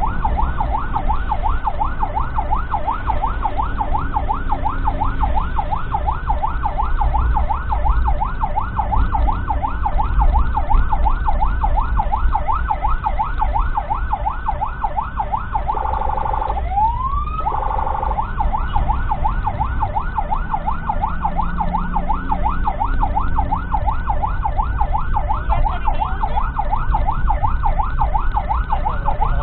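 Ambulance siren on a fast yelp, its pitch sweeping up and down about three or four times a second. A little past halfway it breaks into a brief held tone and one rising sweep before the yelp starts again, over the low rumble of the vehicle's engine and road noise.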